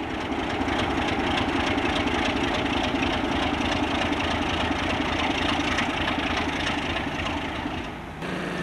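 Diesel locomotive engine running steadily and loud as the locomotive moves off slowly. It cuts off abruptly about eight seconds in.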